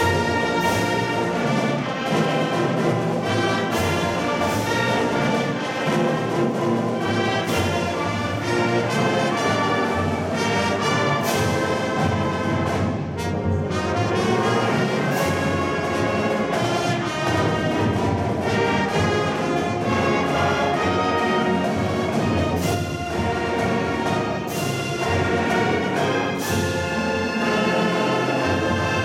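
High school marching band playing its field show: massed brass with drum and cymbal strikes punctuating the music.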